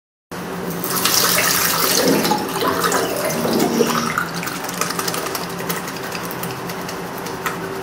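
Water running from a tap into a stainless-steel sink while hands are rinsed and rubbed together under it. It starts abruptly just after the beginning and is loudest in the first few seconds.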